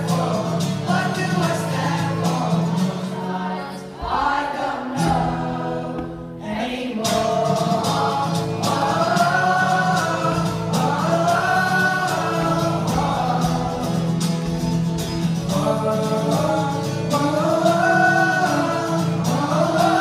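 Music with a group of voices singing together over a steady low accompaniment, briefly dipping about six seconds in before carrying on.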